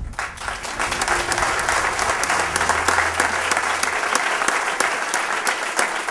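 Audience applause, breaking out suddenly, with sharp hand claps close by standing out from the crowd's clapping.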